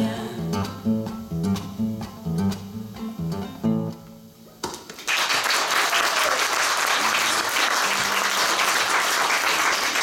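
Acoustic guitar strumming the closing chords of a song, about two strokes a second, the last chord ringing out and fading. About five seconds in, audience applause breaks out and carries on.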